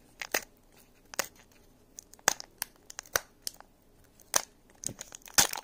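Foil wrapper of a hockey trading card pack crinkling and tearing as it is opened by hand, in irregular short, sharp crackles.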